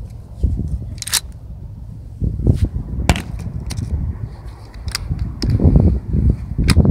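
Wind rumbling on the microphone, with camera handling noise and a few scattered sharp clicks.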